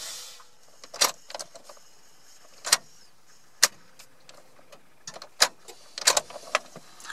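A Chrysler 318 V8 being switched off, its dreadful noise from the flex plate rubbing the inspection cover dying away within the first half second. Then comes a string of irregular sharp clicks and light jingles, like the ignition key and key ring, in a quiet cab.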